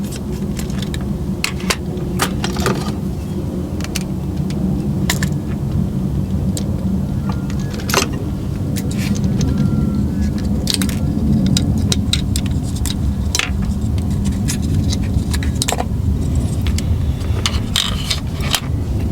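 Irregular small clicks and taps from the plastic body and chassis of a model railcar being handled and prised apart, over a steady low hum.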